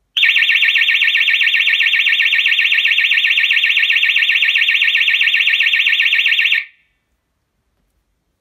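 Pyronix Deltabell Plus external alarm bell box sounding its siren: a loud, high-pitched, rapidly warbling tone that starts suddenly, holds steady for about six and a half seconds and then cuts off.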